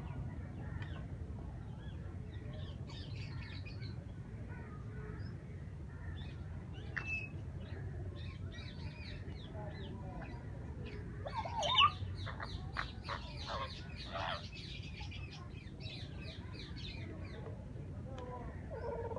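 African grey parrot making a string of short whistles, clicks and chirping calls, scattered irregularly, with the loudest call about twelve seconds in. A steady low rumble sits underneath.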